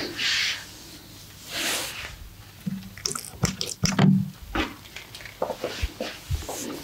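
Hands working skin in a massage: two soft swishes in the first two seconds, then a quick run of wet squishing clicks and pats with a few dull thuds.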